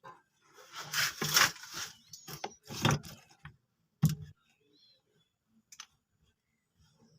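Scraping and rubbing of hands working on a charging cable's plug and wires, with a sharp click about four seconds in.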